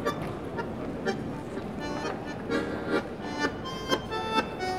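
Vibrandoneon, a bandoneon-style button accordion, playing a tango melody in short, detached notes; the notes grow clearer and more accented about two seconds in, over a steady background hiss of street noise.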